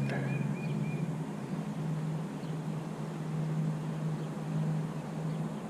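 A steady low mechanical hum that holds one even pitch, with a few faint high chirps in the first second.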